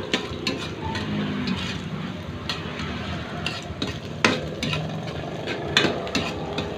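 Pork intestine pieces sizzling in hot oil in an aluminium wok while a metal spatula stirs and scrapes them, with irregular sharp clinks of the spatula against the wok over a steady sizzle.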